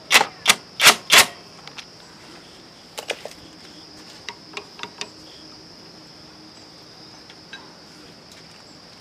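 Four sharp metallic knocks in quick succession in the first second and a half, then a few lighter clicks and taps, from hand work on motorbike clutch parts. A steady high-pitched insect chirring runs underneath.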